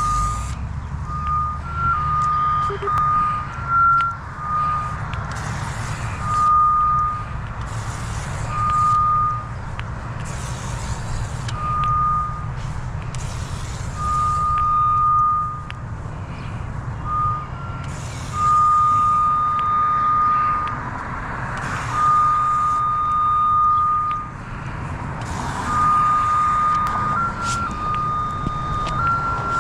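Utility locator receiver sounding its tracing tone as it is swept over a clamped CATV coax cable: intermittent electronic beeps at two close pitches, some short and some held for a second or two, under a steady low rumble.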